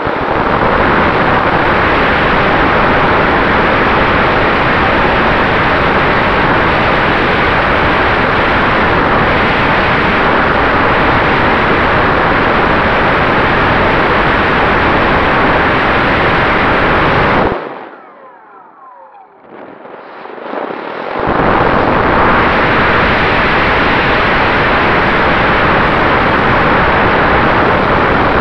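Motor and propeller of a radio-controlled Cessna 188 model running at high power, heard from a camera on its cowl as a loud, steady rush of noise. About 17 seconds in the power drops away sharply for about three seconds, then builds back up to full.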